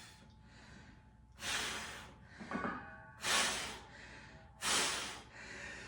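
A man breathing hard from exertion: three forceful, hissing exhales about a second and a half apart.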